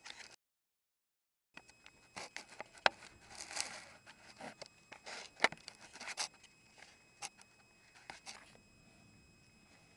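Close handling noise: irregular sharp clicks, taps and scrapes, with a dense patch of rustling about three to four seconds in. The sound cuts out completely for about a second near the start.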